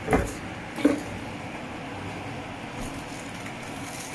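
Two short knocks of cookware being handled at the stove, about 0.7 s apart, the second the louder. A steady hiss follows.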